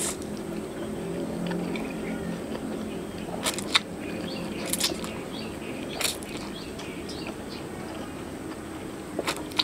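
Mouth sounds of a person eating instant noodles close to the microphone: noodles slurped in and chewed, with several short sharp slurps or smacks, a pair about three and a half seconds in, then near five, six and nine seconds.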